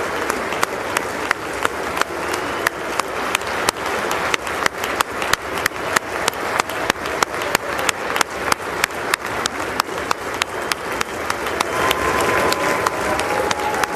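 Prolonged applause from a large audience: dense, steady clapping, with sharp clicks standing out about three times a second.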